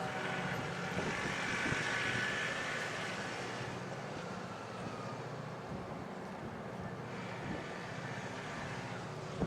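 Steady engine drone with a faint high whine that fades after about three seconds.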